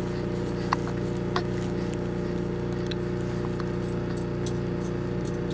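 Steady low background hum made of several held tones, with a few faint short clicks.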